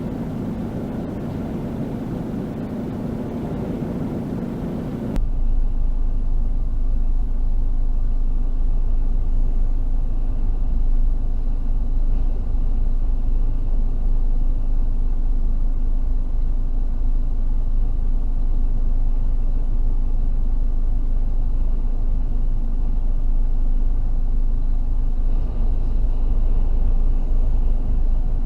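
Gale-force wind, gusting 40 to 50 mph, blowing hard across the microphone. About five seconds in, it cuts abruptly to a deeper, louder, steady low rumble of wind buffeting.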